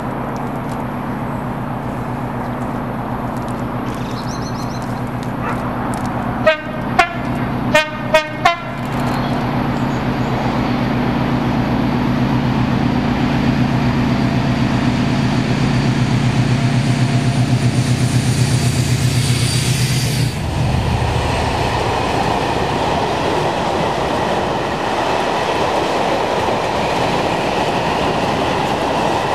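A Class 56 diesel locomotive approaches hauling a train of box wagons, its engine running steadily. It sounds several short horn blasts about seven seconds in and passes close by at about twenty seconds, after which the wagons rumble and clatter past.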